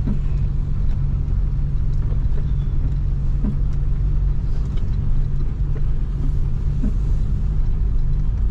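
Steady low engine and road rumble of a Toyota Hilux pickup driving downhill, heard from inside the cab.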